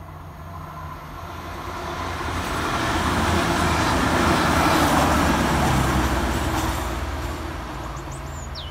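CrossCountry Voyager diesel multiple unit passing at speed: the rush of the train builds to a peak about halfway through, then fades as it goes away. A bird chirps a few times near the end.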